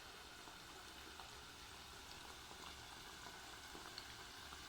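Pumpkin mandazi dough frying in hot cooking oil: a faint steady sizzle with a few small pops.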